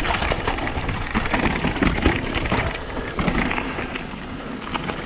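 Mountain bike tyres crunching and rattling over loose slate and gravel on a fast downhill, with many small clicks and knocks from stones and the bike; the noise eases a little in the second half as the bike slows.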